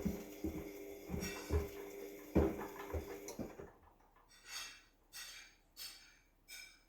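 Washing machine running with a steady hum and a rhythmic series of knocks and clunks, stopping about halfway through. Then four short swishes follow at even spacing.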